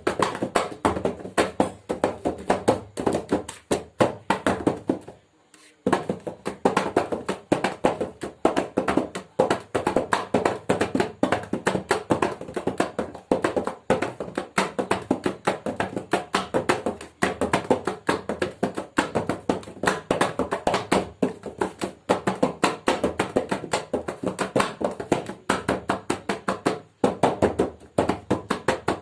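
Mridang, a double-headed hand drum, played with quick runs of hand strokes several times a second. The playing stops briefly about five seconds in, then goes on.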